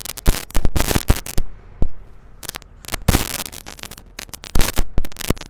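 A run of irregular sharp crackles and knocks, densest at the start, around the middle and near the end.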